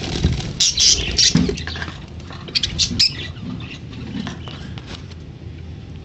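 Budgerigars stirring in a cage: short bursts of wing flutter and scratchy, harsh chirps, loudest in the first three seconds and quieter after.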